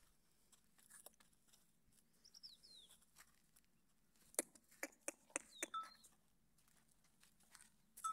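Quiet, with a few faint high bird chirps, then a quick run of sharp clinks from the small metal bell on a camel's neck about halfway through, ringing again near the end.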